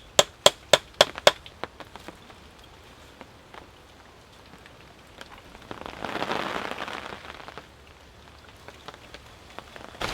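Hand-working a green alder blank to make the hole for an arrow-shaft mandrel: a quick run of sharp wooden knocks, about four a second, then scattered light ticks and a brief rasping scrape about six seconds in.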